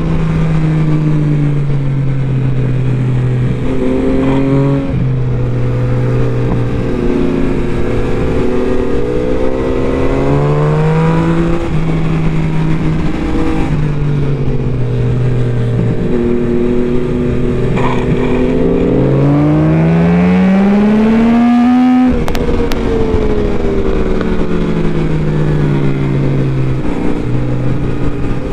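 Yamaha MT-09 SP's inline three-cylinder engine at speed, its pitch repeatedly climbing and dropping with throttle and gear changes through a run of curves, over steady wind rush. About three-quarters of the way through, a long climb in revs breaks off sharply.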